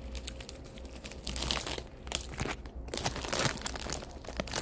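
Plastic snack bag, a bag of Cheetos, crinkling and crackling in irregular bursts as it is handled.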